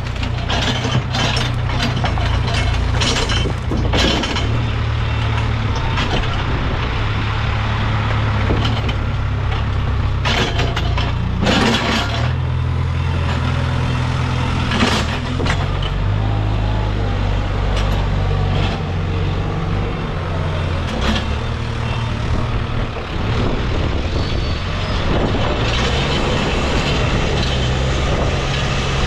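Case backhoe loader's diesel engine running under changing load, its pitch stepping up and down every few seconds as it works. Scattered knocks and clanks come through, mostly in the first few seconds and again about halfway through.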